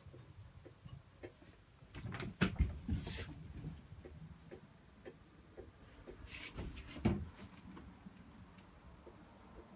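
Faint knocks, thumps and rustling from someone moving about inside a small caravan, with louder clusters of knocks about two and a half seconds in and again around seven seconds in.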